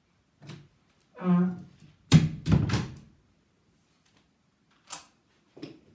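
A room door being pushed shut, with two heavy thuds about two seconds in and a few small knocks afterwards.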